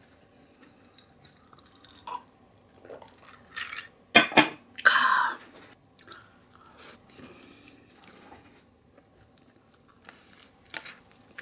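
A crisp hard-shell taco being handled, bitten and chewed, with sharp crackles of the shell and a louder brief rustle about four to five seconds in.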